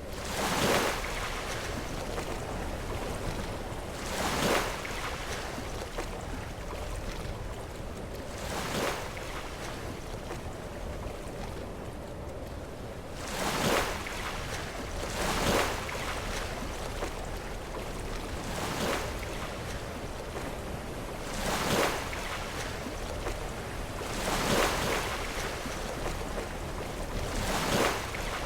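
Sea waves breaking against rocks: a steady wash of surf with about nine louder crashes, each a few seconds apart.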